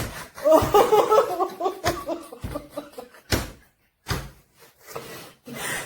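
Women laughing in quick pulsing bursts, broken by several dull thumps, the loudest about three seconds in.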